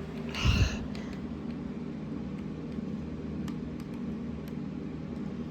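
A short burst about half a second in, then a steady low hum with a few faint light clicks.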